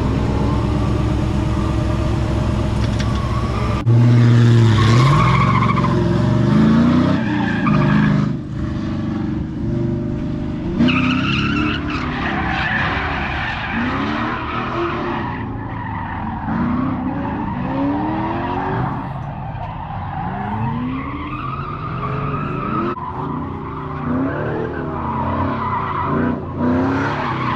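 Chevy C10 pickup's 6.0-litre V8 idling for a few seconds. It then revs up and down over and over while the truck drifts, with tyres squealing and skidding on the concrete.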